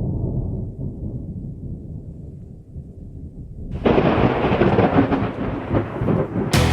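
Thunder: a low rolling rumble that slowly dies down, then a louder, sharper peal of thunder about four seconds in that keeps rumbling.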